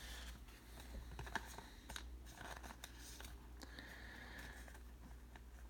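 Faint rustling and light clicks of glossy trading cards being handled and tilted in the fingers.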